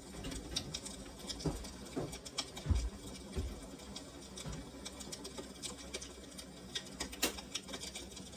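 Irregular light ticking and crackling, scattered throughout, with a couple of soft low thumps about three seconds in.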